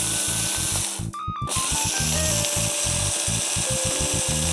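Kenwood electric mini chopper running as it grinds whole peppercorns and coriander seed coarse. It stops briefly about a second in, then runs again.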